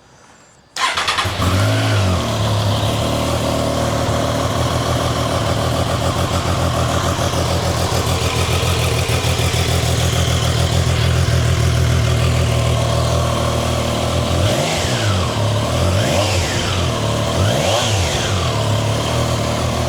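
Triumph Trident 660's inline three-cylinder engine on its stock exhaust, starting about a second in and settling to a steady idle. Near the end it is revved three times in quick succession, pitch rising and falling each time, then drops back to idle.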